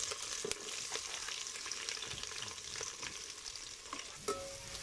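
Sliced onions sizzling in hot oil with curry leaves and dried red chillies in an aluminium pot, a steady frying hiss with small crackling pops, just after the onions go in.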